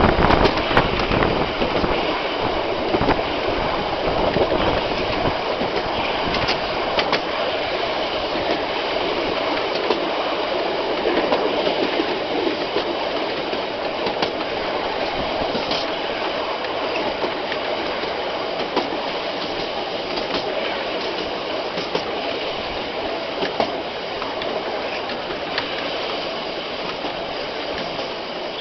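Heritage railway carriage running along straight track: a steady rumble and rattle of steel wheels on the rails, with occasional clicks over rail joints, easing slightly toward the end.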